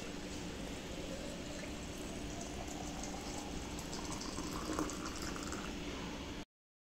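Water poured in a steady stream into the infuser basket of a glass teapot full of lemon and orange pieces, a continuous splashing fill. The sound cuts off abruptly near the end.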